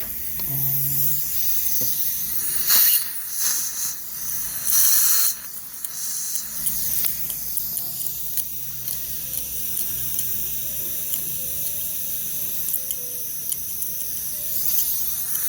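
Dental equipment hissing during scaling: a steady high hiss with two louder bursts of spray, about three and five seconds in.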